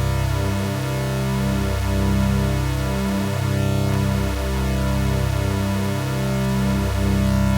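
Sustained synthesizer chords from the Orange Vocoder software plugin, a dense drone of held tones whose bass notes shift about once a second in a repeating pattern, with faint sweeps passing through the higher tones.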